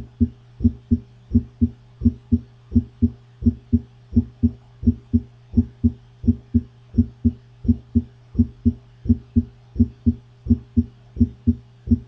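Recorded heart sounds demonstrating a split first heart sound: a steady lub-dub rhythm of low thumps in which the mitral valve closes slightly before the tricuspid valve, so the first sound is heard as two parts. A steady low hum runs underneath.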